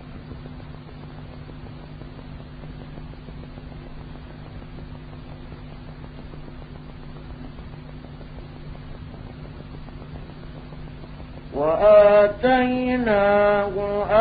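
Faint hiss and a steady low hum for about eleven seconds. Then a man's voice starts a melodic mujawwad-style Quran recitation, loud, with long held notes that waver in pitch.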